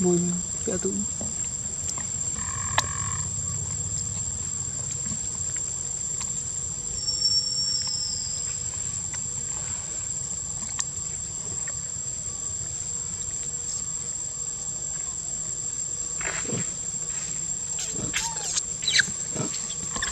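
Steady high-pitched insect drone from cicadas or crickets, with a few short squeaky calls near the end.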